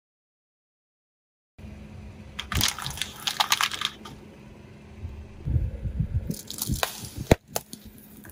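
Car tyre rolling over brittle objects and crushing them: bursts of crackling and crunching with low thuds and a few sharp cracks, the loudest crack near the end, over a steady low hum. It starts after about a second and a half of silence.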